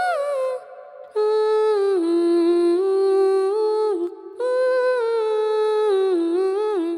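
Wordless humming of a slow, high melody in steady stepped notes, in phrases with short breaks about a second in and about four seconds in.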